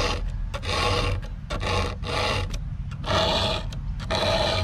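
A round file is drawn by hand through the cutter teeth of a chainsaw chain, sharpening it. There are about five even file strokes, roughly one a second, each lasting about half a second.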